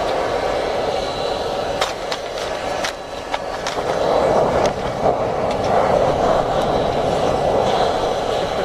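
Charcoal and paper burning hard in a homemade bucket foundry fed by an air pipe: a steady rushing with scattered crackles and pops, growing louder about four seconds in.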